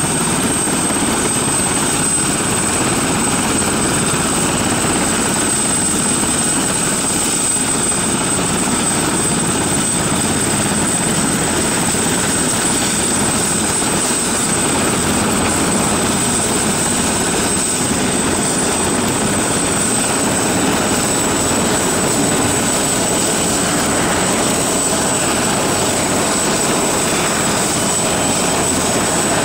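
Bell 412EP helicopter running on the ground with its twin turboshaft engines and four-blade main rotor turning, a steady high-pitched turbine whine over a constant rush of engine and rotor noise.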